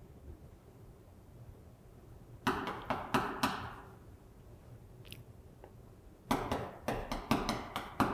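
Chalk writing on a chalkboard: a cluster of short taps and scratchy strokes about two and a half seconds in, then a quicker run of taps over the last two seconds.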